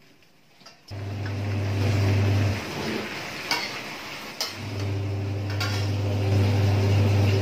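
Metal spatula stirring and scraping stir-fried cabbage in an aluminium wok, with a few sharp knocks of metal on the pan and light frying sizzle. A loud steady low motor-like hum starts about a second in, breaks off for a couple of seconds in the middle, and is the loudest sound.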